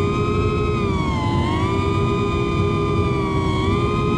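FPV racing quad's brushless motors whining, the pitch swelling up and down a few times with the throttle, over a steady rush of wind.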